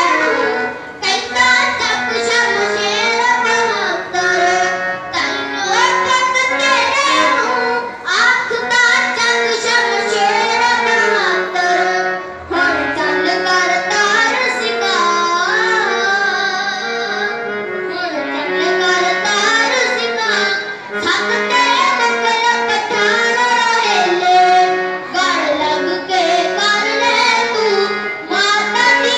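A boy singing a Punjabi song into a handheld microphone, amplified, with long held and gliding notes.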